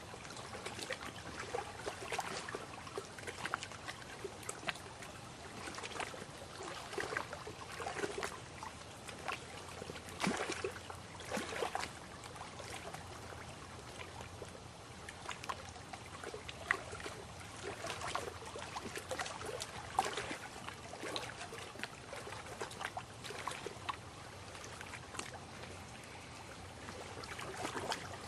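Lake water lapping and trickling, with small, irregular splashes coming every second or so.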